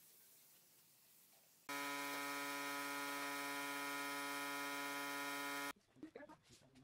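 Compressed-air spray gun spraying finish: a steady buzzing hiss that starts abruptly about two seconds in and cuts off abruptly about four seconds later. A few light knocks follow near the end.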